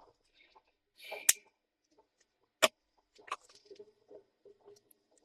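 Small hardware being handled during a laptop RAM swap: two sharp clicks about a second and a half apart, then faint scraping and tapping.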